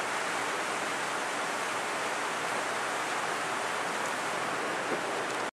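Steady, even background hiss of a home recording, with no distinct events, cutting off suddenly near the end as the recording stops.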